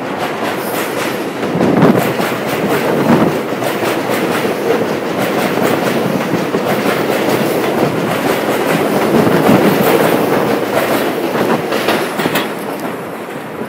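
New York City Subway 7 train running along an elevated platform, its steel wheels clacking over rail joints with a steady rumble. The sound fades as the last car passes near the end.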